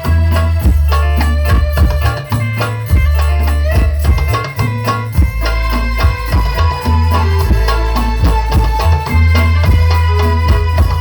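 Sholawat devotional music played loud through a sound system under test, with heavy bass and a dense run of hand-percussion strikes.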